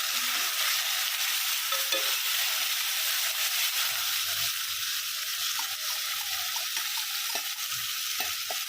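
Marinated chicken frying in hot ghee with sautéed onions, coriander and mint: a steady loud sizzle, with small knocks as the pan is stirred.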